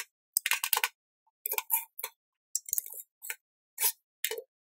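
Steel parts of a homemade bicycle-chain vise clinking and rattling against each other and the steel bench as the vise is handled and its sliding jaw is moved along the chain tracks: a series of short metallic clinks in quick groups.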